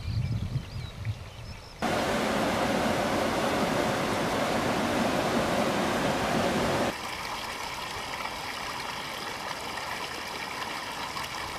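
River rapids rushing over boulders, cutting in sharply about two seconds in after a brief low rumble. About five seconds later it cuts away to quieter, steady outdoor ambience with faint steady tones.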